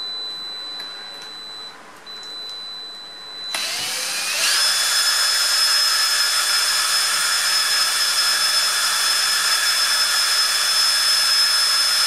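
Cordless drill driving the shaft of an electric motor rebuilt as a generator: after a few light clicks it starts about a third of the way in, speeds up in a rising whine, then runs steady at full speed, spinning the magnet rotor so the coil's output can be measured.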